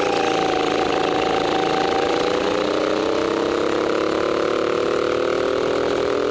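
Go-kart engine running under the driver, heard from a helmet-mounted camera: its pitch dips slightly early on, then rises steadily as the kart accelerates down the straight.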